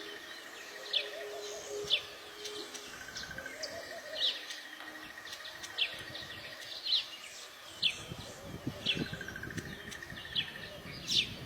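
Weaver birds calling: sharp, downward-sliding chirps about once a second over drawn-out buzzy trills. A low rumble joins in over the last few seconds.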